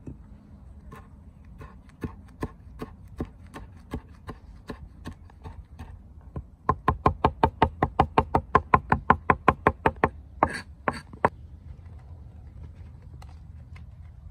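Kitchen utensil striking sharply and repeatedly in food prep: about three strikes a second at first, then a louder, faster run of about seven a second for some three seconds, ending in a few last strikes.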